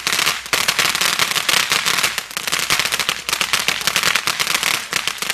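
Fireworks crackling: a dense, rapid run of sharp pops that thins out near the end.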